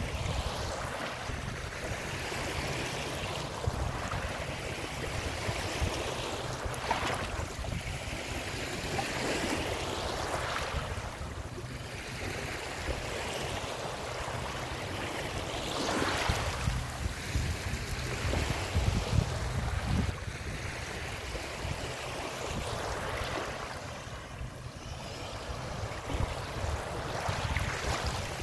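Small waves lapping on a shallow pebble and sand shore, each wash swelling and easing every few seconds.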